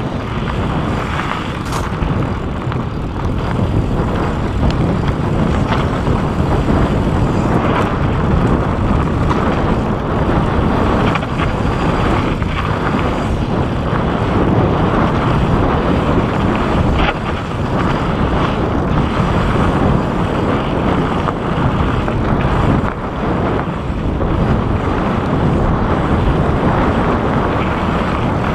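Wind buffeting the microphone in a loud, steady rush during a fast mountain-bike descent, mixed with the tyres rolling over rocky dirt and a few sharp knocks and rattles from the bike.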